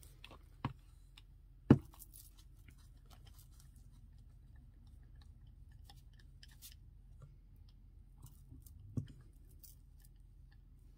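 Soft scratchy strokes of a flat brush spreading matte Mod Podge over a paper napkin, with small paper rustles and clicks. A few sharp knocks on the tabletop, the loudest about two seconds in and a softer one near the end.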